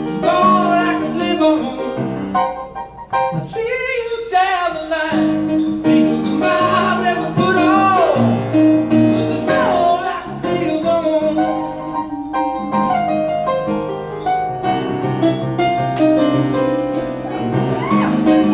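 A man singing live, accompanying himself on piano, with piano chords throughout and the voice gliding between notes.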